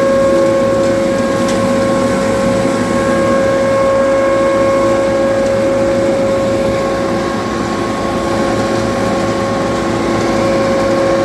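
Hazelnut harvesting machine running steadily, a constant whine over a low engine drone.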